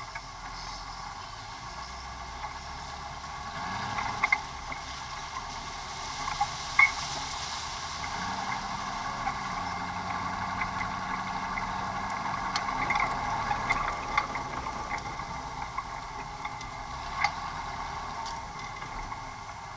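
Off-road vehicle driving slowly over rough, rutted ground, heard from inside its cab: steady running noise that swells for a few seconds midway, with scattered sharp clicks and knocks from the body and fittings rattling.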